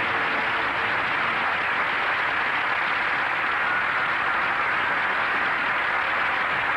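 Studio audience applauding, a steady wash of clapping.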